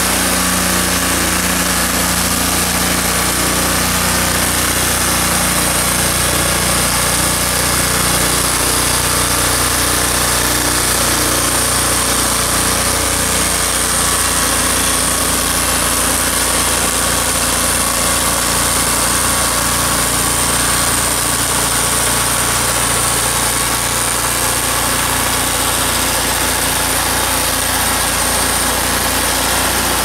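Engine of a TurboSawmill Warrior swing-blade sawmill running steadily under load as its circular blade cuts along a log, with a high, steady hiss from the blade in the wood.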